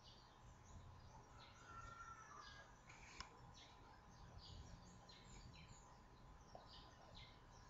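Near silence: faint room tone with a steady faint hum, short faint high chirps repeating throughout, and a single faint click about three seconds in.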